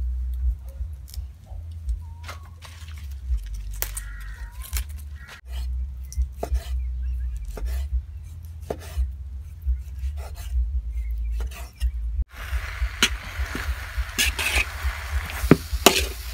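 A kitchen knife clicks as it cuts kale stems, then taps through raw pork on a wooden chopping block. About twelve seconds in, kale and pork sizzle in a hot wok as a metal spatula scrapes and stirs.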